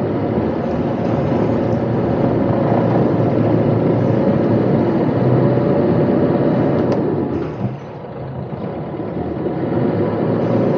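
Sailing yacht's inboard engine running steadily in reverse under the single propeller during a stern-to docking manoeuvre, with a steady drone that drops off briefly about three-quarters of the way through before building again.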